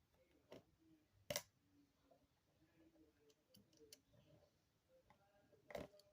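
Sparse small clicks and taps of tools and tiny parts handled on an iPhone being reassembled, with a sharper click about a second in and another near the end, over near silence.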